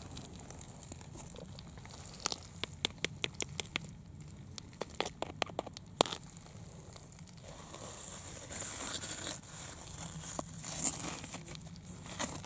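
A hand digging and scraping in gravelly soil around a buried lump, thought to be fossilized bone. Small pebbles click in quick runs, with one sharper click about halfway, then fingers scratch and rustle through the dirt in the second half.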